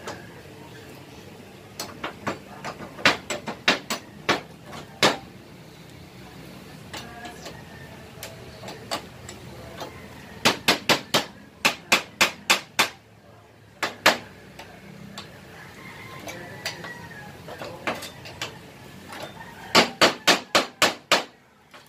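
Hammer striking metal on a motorcycle brake shoe at the bench: short runs of quick, sharp metallic taps, several a second, with pauses between runs.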